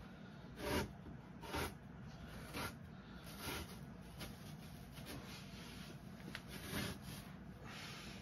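Glued-on carpet being peeled off a wooden speaker cabinet: short rasping tears as it pulls away from the adhesive. They come about one a second at first, then grow weaker and sparser.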